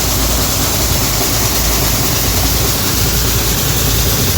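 Combine harvester running steadily under load: a continuous engine rumble with an even mechanical hiss over it, no change in pitch or level.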